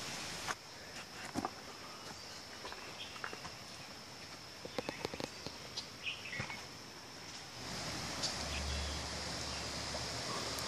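Forest ambience: a steady high-pitched drone of insects, with scattered light clicks and crunches of footsteps on a gravel trail. About eight seconds in, a low steady noise comes in and the insect drone grows louder.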